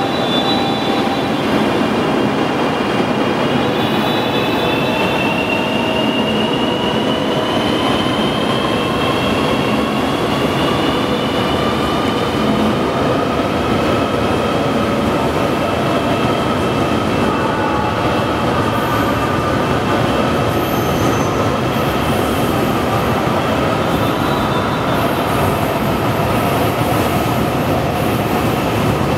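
CRH380A high-speed electric train pulling away from a platform. A steady rush of running noise is overlaid by a whine of several tones that rises in pitch over the first several seconds as the train gathers speed, then levels off.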